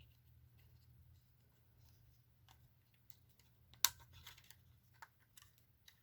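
Faint clicks and light handling noises of a small plastic portable alarm being handled to get at its battery compartment, with one sharper click about four seconds in.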